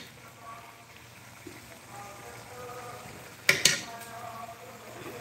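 Metal spatula knocking twice in quick succession against a steel kadhai of stuffed capsicums in gravy, about three and a half seconds in.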